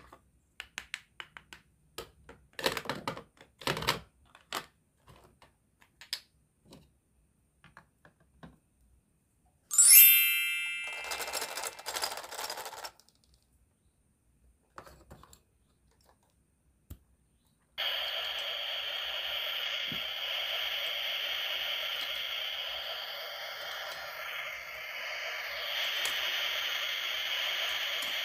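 Plastic and wooden toy kitchen pieces clicking and tapping as they are handled. About ten seconds in there is a sharp ringing clatter, then rattling. From about two-thirds of the way through, a toy grill gives a steady sizzling hiss.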